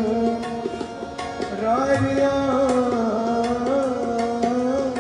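A male singer performs a Kashmiri song live into a microphone, holding long, slowly bending notes, with tabla strokes keeping a steady rhythm underneath.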